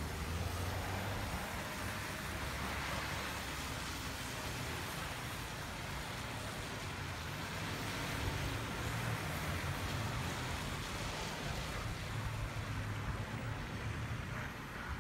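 Street noise of cars passing on a wet, slushy road, a steady hiss of tyres that swells as each vehicle goes by, over a low rumble of wind on the microphone.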